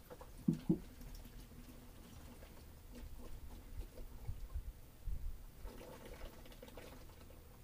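Antifreeze pouring from a plastic jug into an engine cooling hose, with two light knocks about half a second in.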